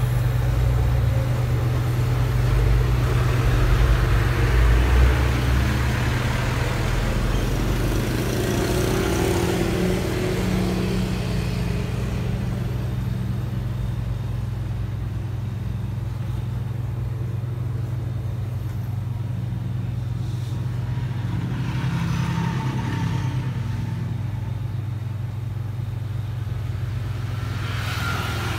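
Refrigeration compressor and condenser fan of a three-door display fridge running with a steady low hum, the unit cooling after its capillary tube was replaced. A rougher low rumble rides over the hum for the first ten seconds or so.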